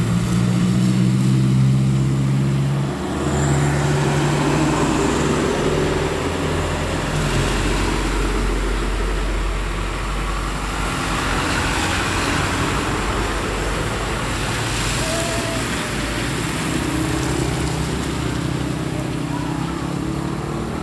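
Trucks and motorcycles driving through a flooded road. A truck engine drones steadily for the first several seconds, then tyres hiss and splash through the water amid passing engine noise.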